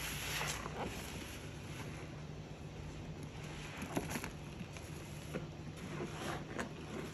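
Sudsy bleach water being worked by hand: a steady wet sloshing hiss with a few scattered squelches and clicks, the loudest about four seconds in.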